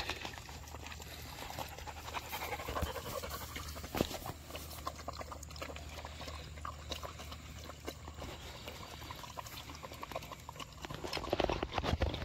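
German shepherd puppies lapping water from a collapsible plastic bowl, several tongues at once, making quick, irregular wet clicks.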